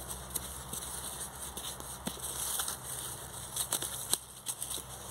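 Dry leaves, grass and loose soil crackling as a metal-detecting pinpointer is pushed about a freshly dug hole, with many small scattered clicks. The pinpointer gives no beep.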